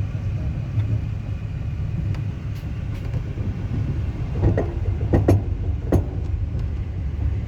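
Passenger train running, heard from inside the carriage: a steady low rumble of the wheels on the rails, with a few sharp knocks a little past the middle.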